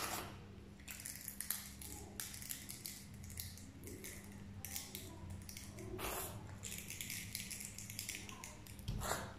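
Thick hair conditioner being poured from a plastic bottle into a glass bowl: faint squelching and small clicks of the bottle being handled, with a brief swish about six seconds in and again near the end, over a low steady hum.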